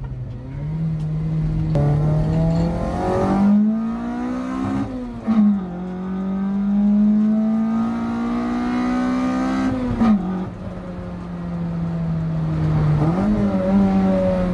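Blacktop 4A-GE 20-valve four-cylinder in a Toyota Corolla AE92, heard from inside the cabin, accelerating hard through the gears. Engine pitch climbs, drops sharply at a gear change about five seconds in, climbs again, drops at another shift about ten seconds in, holds steady, and rises once more near the end.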